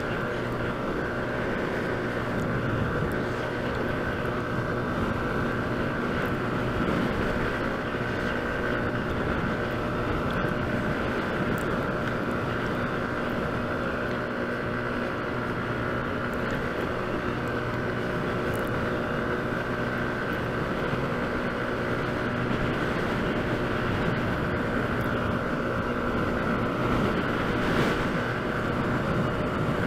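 Motor scooter's engine running steadily at cruising speed, its hum even throughout, with wind rushing over the microphone.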